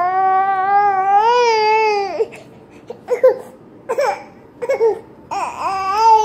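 A toddler crying: a long, drawn-out wail, then a few short sobbing gasps, then another long wail starting near the end.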